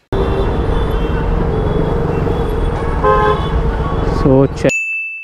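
Busy street traffic noise with short vehicle horn toots about three seconds in and again near the end; the street noise cuts off abruptly and a single high ding rings and fades.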